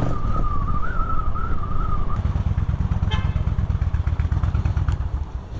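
Yamaha Bolt's air-cooled V-twin engine running under way, a dense pulsing low rumble, with a thin wavering whistle over it for the first couple of seconds. The rumble falls away near the end.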